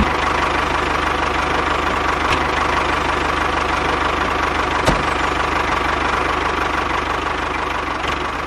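Tractor engine running steadily at idle with a fast, even knocking beat, easing slightly near the end.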